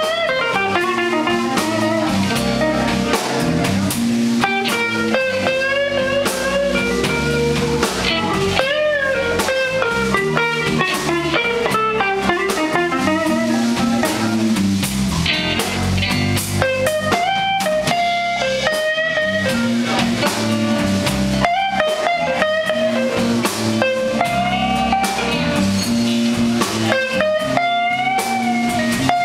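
Live blues band playing an instrumental stretch: an electric guitar lead line with bent notes over bass and drum kit.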